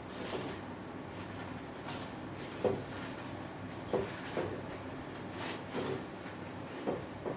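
Soft, scattered knocks and clicks of dishes being handled during a meal of pounded yam and okra soup, a second or so apart.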